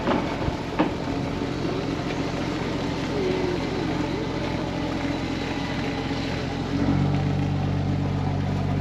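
Boat engine running steadily, then louder and fuller about seven seconds in as the throttle is opened during harbour manoeuvring.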